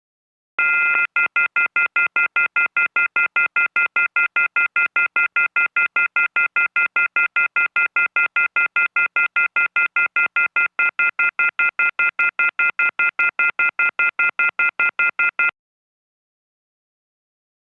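Telephone off-hook warning tone (the receiver-off-hook howler): a loud, shrill chord of high tones beeping rapidly, about five times a second. It is the signal that a handset has been left off the hook. It starts just after the beginning and cuts off abruptly near the end.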